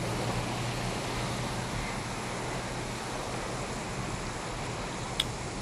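Steady rushing outdoor noise of wind and surf, with a faint low hum in the first two seconds. A single sharp click comes about five seconds in.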